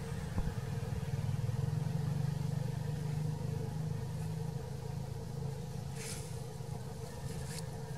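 Steady low drone of a motor vehicle's engine, a little louder between about one and three seconds in, with a few brief rustles near the end.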